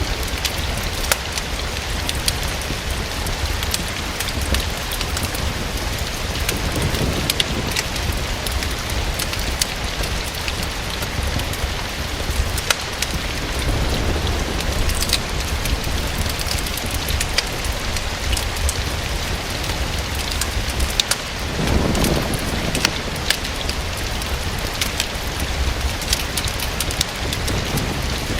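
Steady rain falling against a window, mixed with the crackle of a fireplace: sharp pops and ticks scattered throughout. Low rumbles swell up a few times, the strongest about 22 seconds in.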